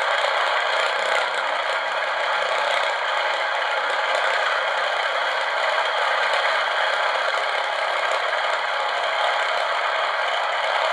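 Electronic engine-sound module playing a simulated aircraft piston engine through a small round speaker: a steady, rattling run, thin and without bass.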